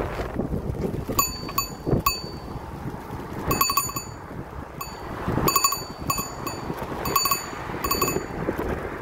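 Bicycle bell rung again and again in short dings, single and in quick clusters, starting about a second in, over a steady wind rumble on the microphone.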